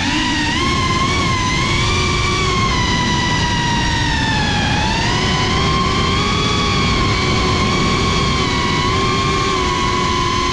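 FPV drone's motors and propellers whining, the pitch wavering up and down as the throttle changes, over a rough low rush.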